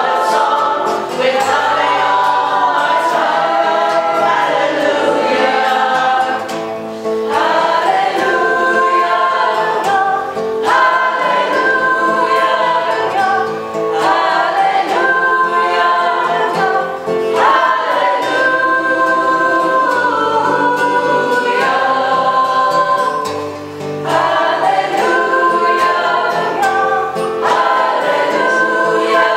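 A small choir of mixed men's and women's voices singing a song together, accompanied by acoustic guitar.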